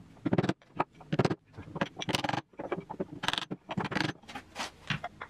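About a dozen short knocks at uneven intervals: a mallet striking a jointer's steel cutter-head assembly to free a pulley stuck on its shaft.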